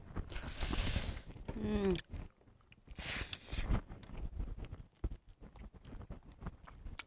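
Food being chewed close to the microphone: wet mouth clicks and breathy sounds, with one short vocal sound about a second and a half in.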